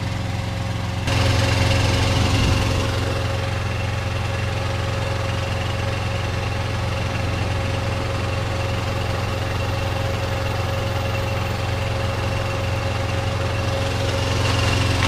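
Diesel truck engine idling steadily: a constant low hum with a faint high whine. It gets louder for a couple of seconds about a second in.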